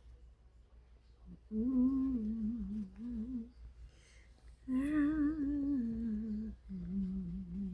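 A woman humming a tune in three long phrases that start about a second and a half in, her voice wavering slightly on the held notes.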